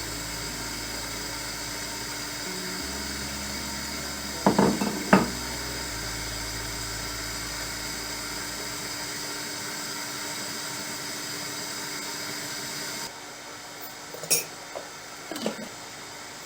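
A small electric appliance motor whirring steadily, with two sharp knocks about four and a half seconds in; it switches off about thirteen seconds in, followed by a few light clinks.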